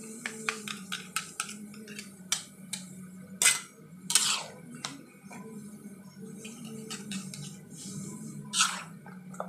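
Utensil clinking and scraping against a metal wok while stir-frying rice vermicelli with vegetables: a quick run of clicks in the first few seconds, then three longer, louder scrapes, over a steady low hum.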